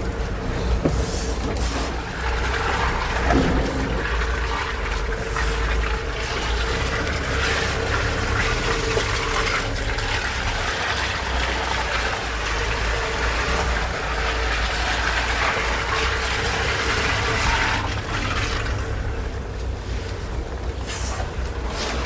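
Suzuki Jimny on the move: steady low engine rumble with a constant hiss of tyre and road noise.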